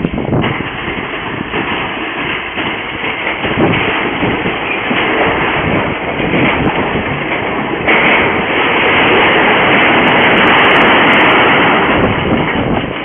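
Farm silo collapsing in a demolition: a loud, continuous rumble and rattle, swelling into a louder crash from about eight seconds in as the silo comes down.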